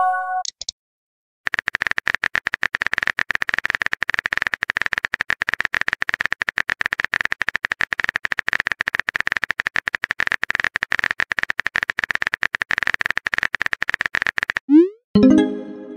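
Rapid phone-keyboard typing clicks from a texting app, a fast, steady stream of taps lasting about thirteen seconds. Short synthesized message tones sound at the very start and again near the end, where a quick upward swoop leads into a brief jingle.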